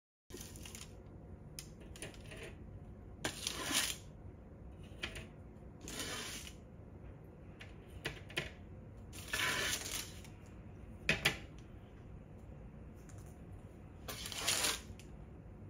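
Baked nan khatai cookies being handled onto a metal wire cooling rack: light metallic clicks and clinks, with about five short scraping rustles a few seconds apart.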